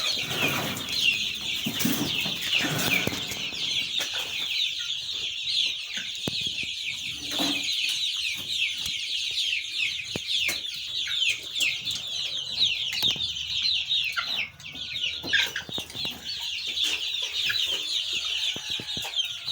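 A flock of about 300 month-old Sasso chicks peeping non-stop, many short high calls each falling in pitch, overlapping into a dense chorus.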